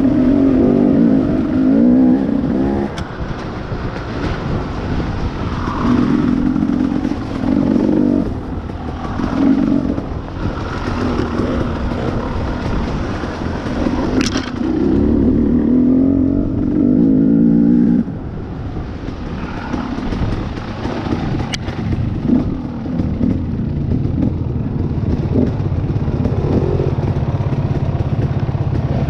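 Dirt bike engine being ridden, opening up in short loud bursts on and off the throttle, then running steadier and lower for the last ten seconds. A single sharp knock about two-thirds of the way through.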